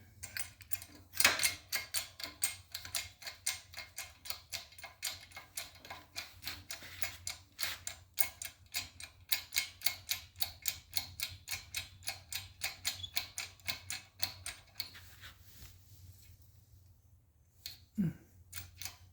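Hand pump handle of a 12-ton hydraulic shop press being worked to press a wheel hub into a bearing: a rapid, even run of metallic clicks, about four or five a second, that stops about 15 seconds in. A few more clicks and a short grunt or voice sound come near the end.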